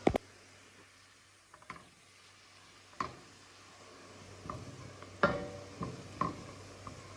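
Kitchen dishes and utensils knocking and clinking while food is prepared: about eight separate knocks, a few with a short metallic ring, over a faint steady low hum.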